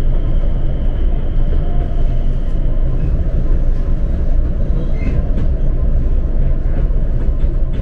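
Passenger train running steadily, heard from inside the carriage: a continuous low rumble of the car and its wheels on the rails, with a faint high tone fading in the first few seconds and a few light clicks later.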